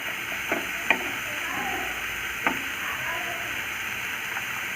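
Onion, tomato and coconut masala sizzling steadily in oil in a pan as it cooks down, with a few sharp clicks of a spoon stirring it in the first half.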